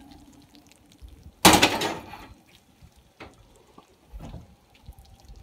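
Kitchen handling noise as a glass baking dish is taken out of the oven and set on the stovetop: one loud clatter about a second and a half in, then a few light knocks.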